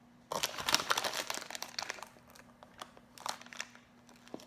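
Crinkling of a plastic pastry wrapper as a packaged croissant is handled. It is loudest and densest for the first two seconds or so, then comes back as a few softer crackles.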